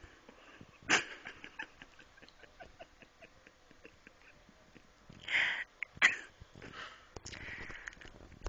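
A person snoring in irregular, noisy breaths: a sudden loud catch about a second in, a breath around five seconds followed by another sharp catch, and a longer breath near the end.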